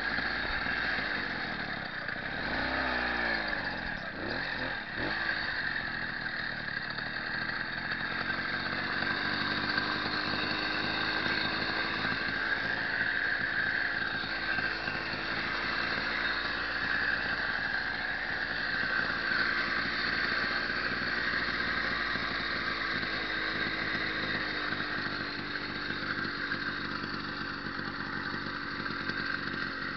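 Motorized bicycle's small two-stroke kit engine running; its pitch rises and falls several times about two to five seconds in, then holds fairly steady for most of the rest.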